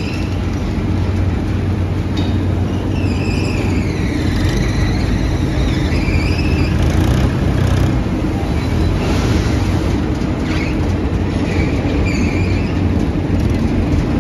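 Diesel tractor engines running steadily in a sugar mill yard, with the mill and crane machinery going. A high machine whine dips and rises in pitch a few seconds in and comes back briefly near the end.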